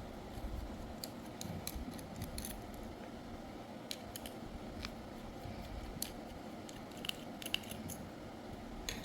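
Scattered light clicks and scrapes of a hair trimmer's blade being pried at and handled in an attempt to take it off; the blade stays stuck.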